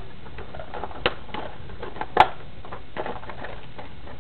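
Handling sounds as a small part is taken out of its packaging: scattered clicks and short rustles, the sharpest click about two seconds in.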